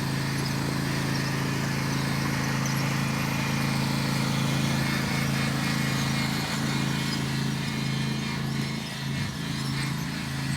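Small petrol lawn mower engine running steadily at a constant speed, a little quieter near the end.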